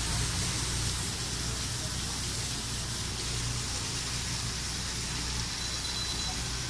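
Steady hiss-like noise with a low hum underneath, unchanging and without any distinct event.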